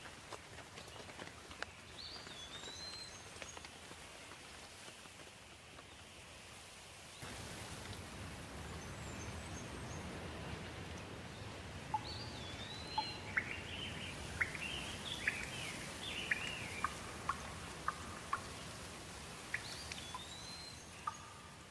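Steady rain with birds singing over it: a short whistled call early on, a run of several chirps about two-thirds of the way through, and another call near the end. The rain gets louder abruptly about a third of the way in.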